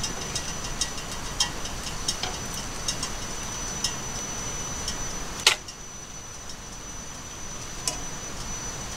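Wooden chopsticks clicking and tapping against a nonstick frying pan as a thin egg sheet is lifted and turned, with irregular light ticks over a steady background hiss and a faint high whine. A sharper, louder click comes about five and a half seconds in, after which the background hiss drops.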